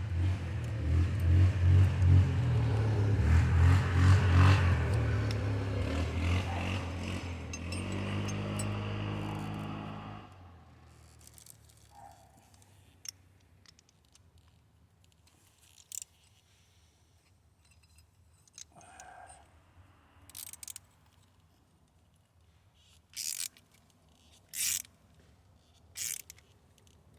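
A motor vehicle engine running, loud and uneven, then settling to a steadier note and stopping abruptly about ten seconds in. After that come scattered faint scrapes and clicks.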